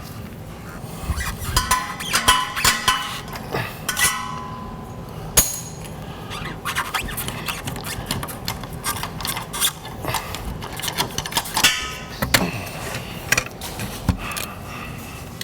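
Irregular metal clanks, clinks and knocks of tools and suspension parts being handled, some hits ringing briefly.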